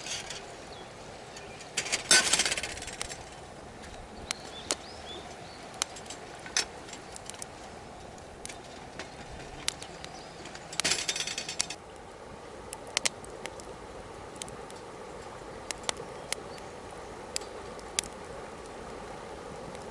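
Wood campfire crackling, with scattered sharp pops, and two short louder noisy bursts about two and eleven seconds in.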